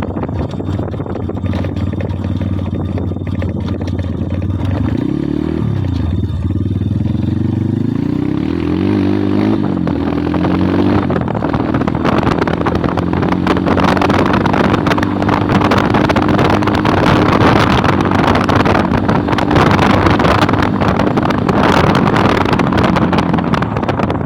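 Kayo 140cc pit bike's single-cylinder four-stroke engine under way: its pitch rises and falls through gear changes about a quarter of the way in, then holds steady at speed with growing wind noise on the microphone.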